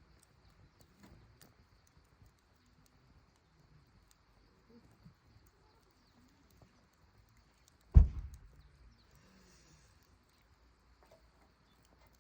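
Faint crackles and small ticks of a campfire burning, over a faint steady high hiss. A single low thump about eight seconds in is the loudest sound.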